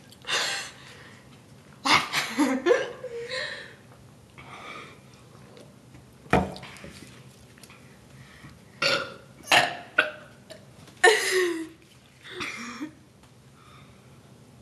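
Deliberate burps in a burping contest: about eight belches of varying length, some short, some drawn out with a dropping pitch, the loudest about eleven seconds in.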